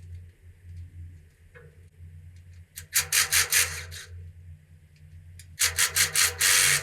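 A hand ratchet wrench worked back and forth to undo engine bolts, giving two quick runs of rasping ratchet strokes, about five or six a second. The second run starts about halfway through. A steady low hum runs underneath.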